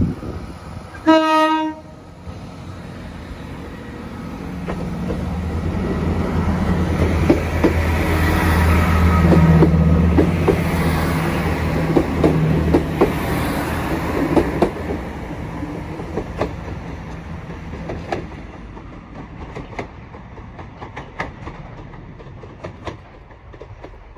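Class 165 diesel multiple unit sounding one short horn note about a second in, then passing with its diesel engines running and the wheels clicking over the rail joints. The sound builds to its loudest as the train goes by, then fades as it moves away.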